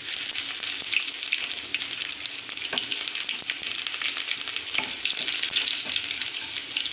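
Crushed garlic cloves sizzling in hot tempering oil with mustard seeds, split dals and cumin: a steady crackling sizzle. A wooden spatula stirs and scrapes through it, with a few light knocks against the pan.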